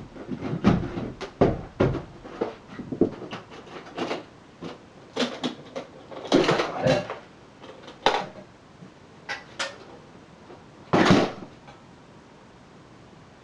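Rummaging: irregular knocks, clatter and thuds of objects being handled and moved. A longer, louder scrape or thump comes near the end.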